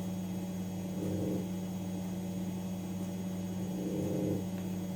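Steady low electrical mains hum, with two short soft low rumbling sounds, about a second in and again about four seconds in.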